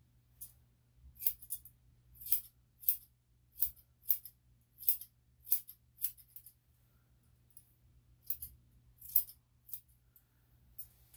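Grooming scissors snipping a Shih-Tzu's coat: about twenty sharp, crisp snips at an irregular pace, roughly two a second, as the hair is trimmed.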